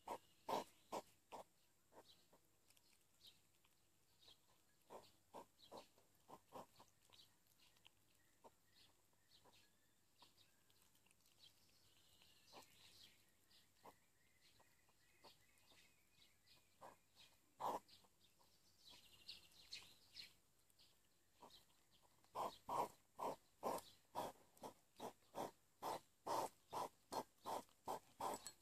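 Hedgehogs chewing food from a plastic dish: a quick run of short smacks, about three a second. The smacks thin out in the middle and come steadily again near the end.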